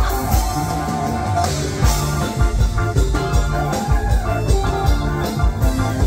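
Live band music: a drum kit keeps a steady beat under long held melody notes and a bass line.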